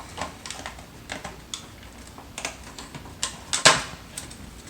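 Plant shipping packaging being opened by hand: irregular crinkles and clicks, with one louder crackle near the end.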